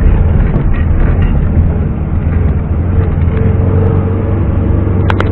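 ZAZ-968M Zaporozhets' air-cooled V4 engine running under way: a loud, steady low rumble. A faint steady whine joins about three seconds in, and there is a sharp click near the end.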